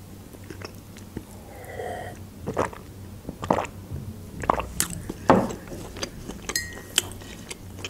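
A person drinking juice from a glass: several separate gulps and swallows with soft, wet mouth sounds.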